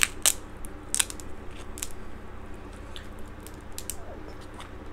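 Crab leg shell cracking and snapping as it is broken apart by hand: several sharp cracks in the first two seconds, fainter ones after, over a steady low hum.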